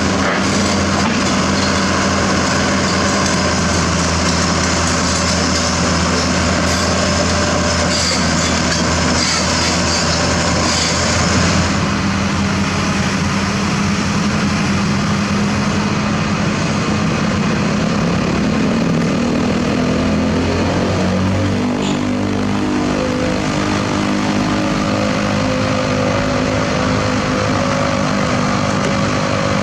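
Diesel engine running steadily, its pitch shifting and rising about two-thirds of the way through as it revs.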